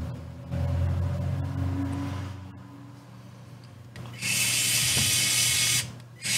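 Small electric screwdriver driving a screw into an RC crawler chassis, its motor whirring steadily for about two seconds. About four seconds in, a louder hissing rasp lasts a second and a half, with a short one again near the end.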